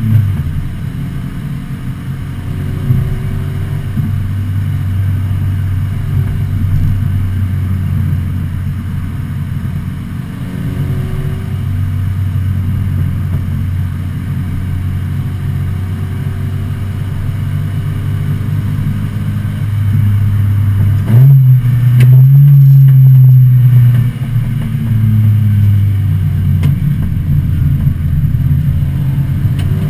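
The engine of a 1986 Volvo 245 race car, heard from inside the cabin, running at a steady pitch down a straight. About two-thirds of the way through its note climbs and grows louder for a few seconds, then drops back and rises and falls again as the car heads into a turn.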